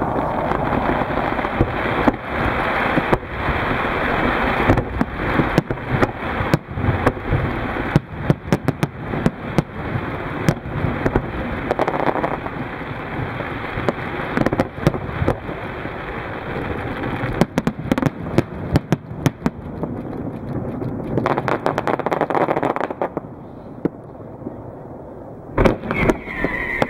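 Fireworks display: a dense run of shell bursts and crackling bangs over a steady rushing hiss. It thins out to a quieter hiss about 23 seconds in, and a few more bangs come near the end.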